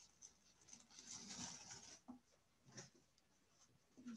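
Near silence: faint room tone with a few soft ticks and a brief faint rustle about a second in.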